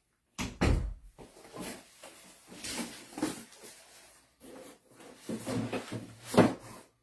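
Irregular knocks, taps and scuffs from objects being handled at close range, about one to two a second, with a louder knock near the start and another near the end.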